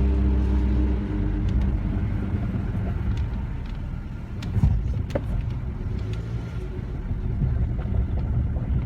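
Nissan car running with a steady low rumble and grinding noise whose cause the owner cannot find. An engine hum fades out about a second in, and there are a couple of sharp clicks midway.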